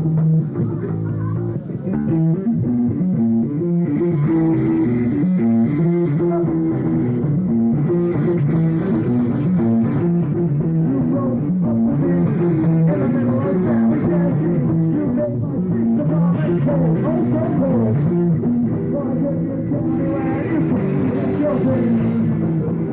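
Rock band playing live: electric guitar, bass and drums playing an instrumental passage.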